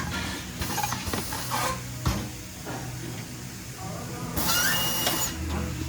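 Tire-shop work sounds: scattered metal clicks and knocks over a low hum, with a brief hiss of compressed air about four and a half seconds in.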